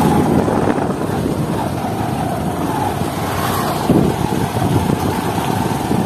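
Motorcycle running steadily on the move, its engine hum mixed with rushing wind noise on the microphone.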